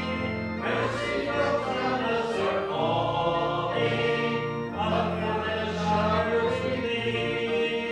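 Congregation singing a hymn together over held chords in the accompaniment, with the bass changing every second or so.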